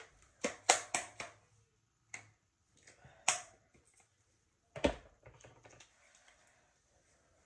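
Sharp clicks and taps from handling a plastic conditioner bottle and its cap, several close together in the first second or so, then a few more, with a heavier thump about five seconds in. Soft rubbing of hands spreading the conditioner follows.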